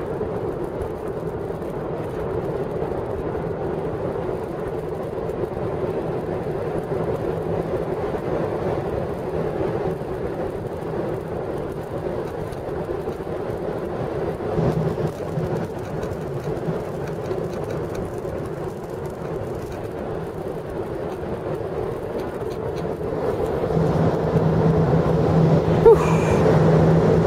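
Steady rumbling roar of jet airliner engines, with a low steady hum coming in near the end.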